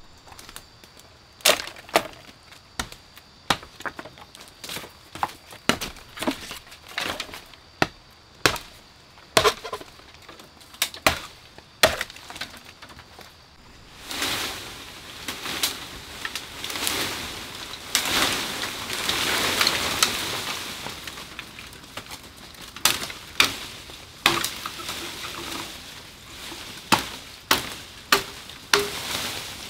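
Bamboo being chopped with a blade, sharp irregular strikes often a second or less apart. Midway comes a long rustle of bamboo leaves and branches as a stalk is pulled down through the thicket, then more chopping strokes near the end.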